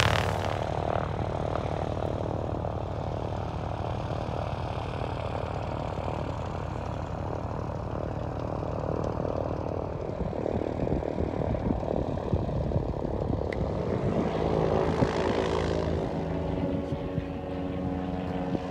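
Light propeller airplane's piston engine running. Its steady engine drone grows clearer and stronger near the end.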